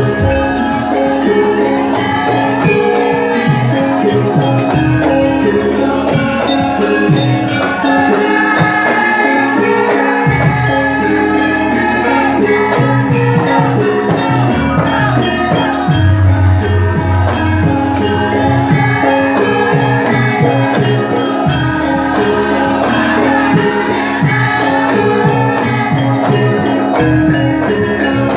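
Music with a fast, busy percussion beat over a bass line and a melody, with singing.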